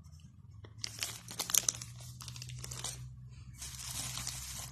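Clear plastic packaging crinkling as it is handled, with a cluster of sharp crackles about a second and a half in. Near the end, a steadier rustling as a hand rummages inside a padded foil mailer envelope.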